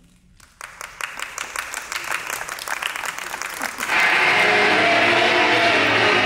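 Audience clapping, growing louder. About four seconds in, recorded music starts suddenly and drowns it out.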